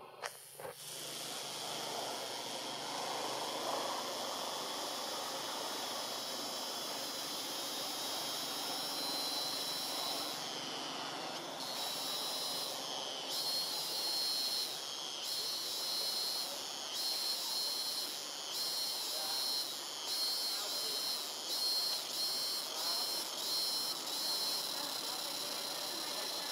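Steady hiss of forest insects, joined about ten seconds in by a high, rhythmic insect call pulsing about once a second and quickening toward the end.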